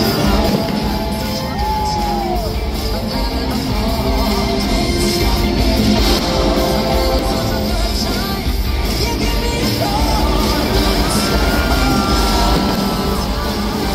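Rock music with a singing voice, steady and loud throughout.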